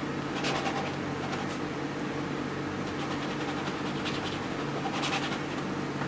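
Painting tool scraping oil paint onto canvas in short rasping strokes, about five of them, laying in a dark underlayer, over a steady low hum.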